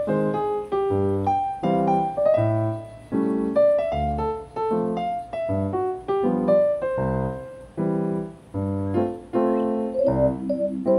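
Background piano music: a steady run of single struck notes and chords.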